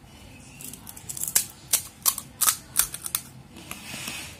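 Crisp fried pani puri shells cracking as fingers break open their tops: a quick run of sharp, crunchy cracks starting about a second in, then a softer crumbly rustle near the end.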